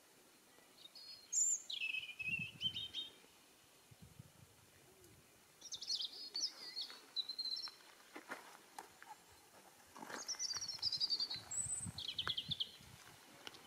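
European robin singing: three short phrases of high, quickly changing warbling notes, a few seconds apart.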